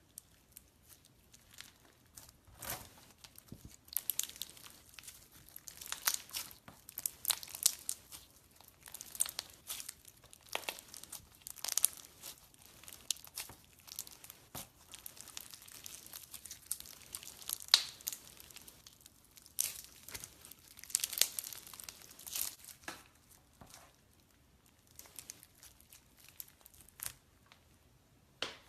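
Crunchy slime being squeezed and stretched by hand, giving irregular bursts of crackling and popping, with short pauses between handfuls.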